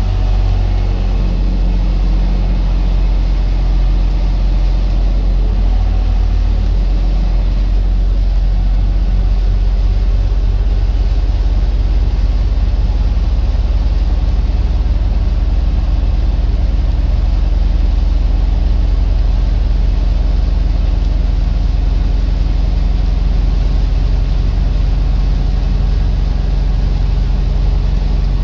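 Semi truck driving down the road: a steady, low engine drone with road noise.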